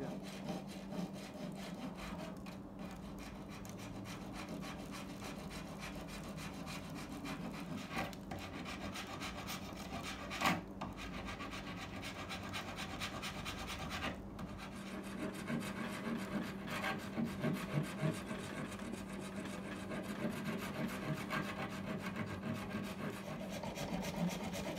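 Flat metal hand file rasping in repeated back-and-forth strokes over cured epoxy putty filler on a wooden chair, filing the fill down to shape. A few sharper clicks come from the file knocking the work.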